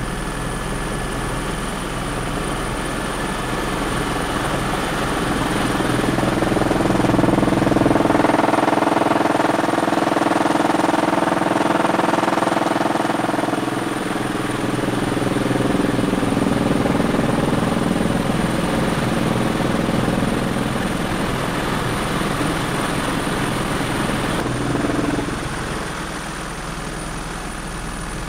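Helicopter engine and rotor running in flight, heard from inside the cabin: a steady, loud drone with a thin high whine. It grows louder for several seconds in the middle and then eases back.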